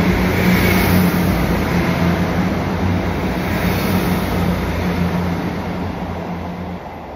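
Manchester Metrolink tram running: a steady low hum under a rushing noise, slowly fading over the last few seconds.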